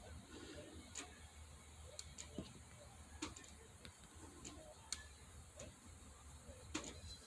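Near silence: quiet room tone with a low steady hum and faint, irregular clicks.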